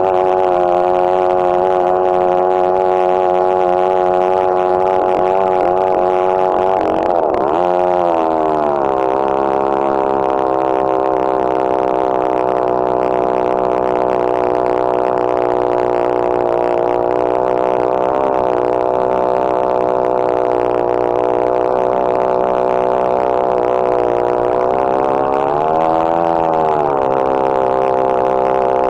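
Chainsaw running at full throttle in a chainsaw mill, ripping a lengthwise cut through a red cedar log. Its steady engine note sags twice, around seven seconds in and again near the end, and then recovers.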